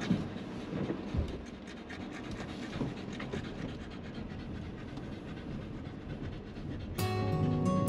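Shiba Inu dog panting, with irregular short scratching and rustling sounds. Acoustic guitar music comes in near the end.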